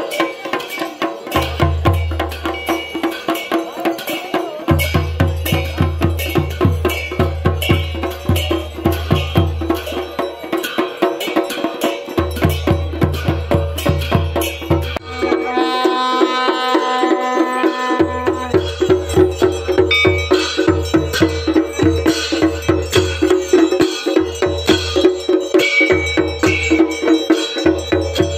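Music with a fast, busy drum rhythm and a deep bass line that drops out and comes back several times. About halfway through, a long held note with many overtones sounds over it.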